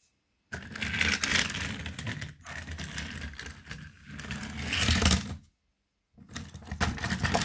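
Push-along toy engine's wheels rolling and rattling along plastic TrackMaster track, pushed by hand. The rolling stops for a moment about five and a half seconds in, then starts again.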